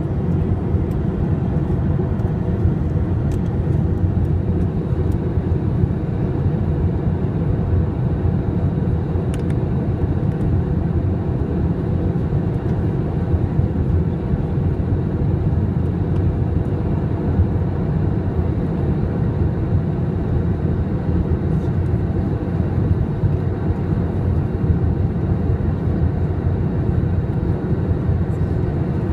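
Steady low rumble of engine and airflow noise inside an Airbus A321's cabin in flight, heard from a window seat over the wing.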